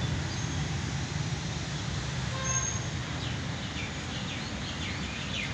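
Outdoor ambience: a steady low rumble of distant traffic, a short pitched toot about two and a half seconds in, and a run of quick, high bird chirps through the second half.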